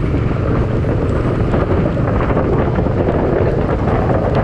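Wind buffeting the microphone over the steady running of a Bajaj Dominar 400's single-cylinder engine as the motorcycle rides along.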